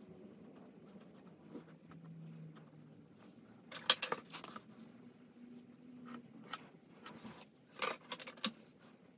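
Small hard objects being handled, clinking and rattling in two short bursts: one about four seconds in and another near the end.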